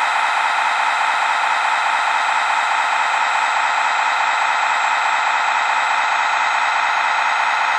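Electric hydraulic pump of an RC model truck's folding loading crane running steadily while the crane lifts its load, a continuous high whirring hiss that holds the same level throughout.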